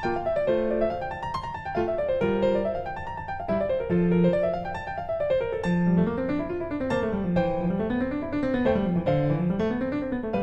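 Background piano music: quick runs of notes rising and falling over a rolling bass line.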